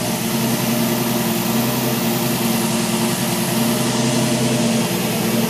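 Fuel-injected car engine idling steadily while it warms up, its fast idle solenoid still engaged.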